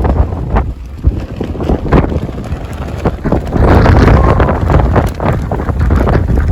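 Strong wind buffeting the microphone in heavy gusts, a loud low rumble that swells about halfway through.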